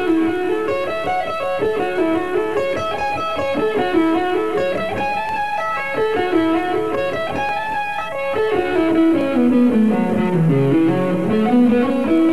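Electric guitar playing a very fast single-note lick, the notes following one another many times a second. About two-thirds of the way through, the line runs down into the low register and then climbs back up.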